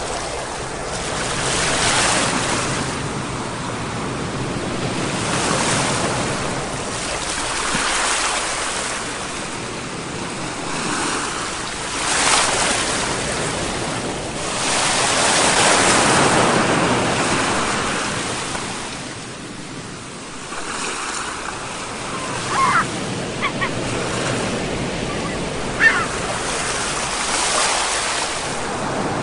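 Ocean surf: waves breaking and washing up, swelling and falling away every few seconds. A few short high chirps come through in the last third.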